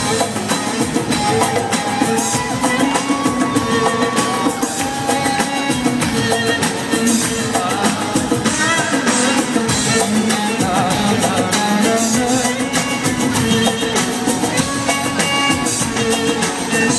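Live band music with drums, guitar and a singing voice carrying the melody.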